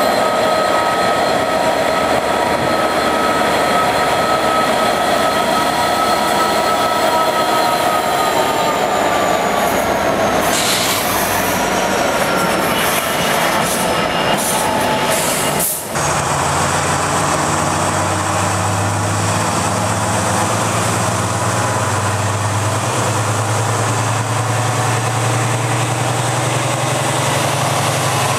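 Freight wagons rolling past behind a Class 66 diesel locomotive, their wheels squealing in several steady high tones that slide slightly lower. After a break about 16 seconds in, a Class 70 diesel locomotive's engine idles with a steady low hum.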